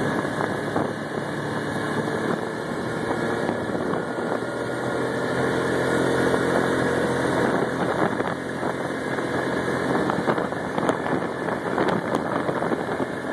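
ATV engine running steadily while the quad rides along a paved road.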